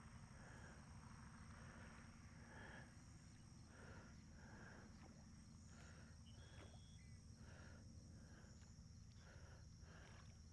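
Faint outdoor nature ambience: a steady high insect drone, with short animal calls repeating irregularly about once or twice a second.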